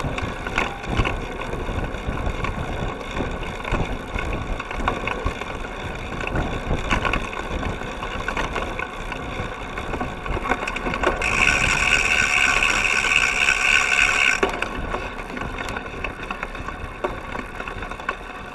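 Cyclocross bike ridden fast over bumpy grass, heard from a camera on the rear seat stay: continuous rattling, knocking and tyre noise from the bike's frame and drivetrain. A little past the middle a high steady buzz takes over for about three seconds, then stops.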